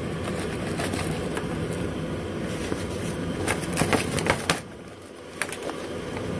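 Rustling and handling noise as parts are pulled from a vinyl tool case, with a few sharp clicks and clinks of metal alligator-clip clamp cables being set down on a wooden table between about three and a half and four and a half seconds in.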